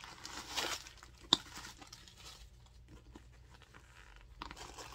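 Tissue-paper stuffing rustling and crinkling as a handbag is handled. There is one sharp click about a second in, and the rustling starts again near the end.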